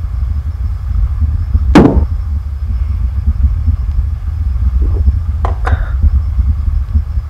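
Steady low rumble, with one sharp hit about two seconds in and two quick clicks a little past halfway.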